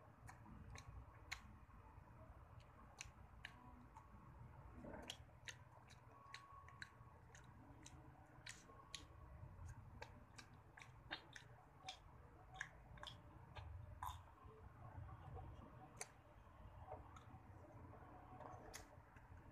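Quiet, close-miked mouth sounds of eating an ice cream bar: irregular soft clicks and smacks of chewing and licking, several a second.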